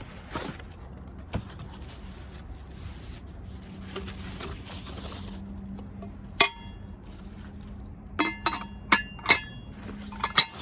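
Tableware or cookware being handled: ringing clinks of hard dishes, cups or utensils knocking together, one about six seconds in and a quick run of four or five near the end, over a faint low steady hum.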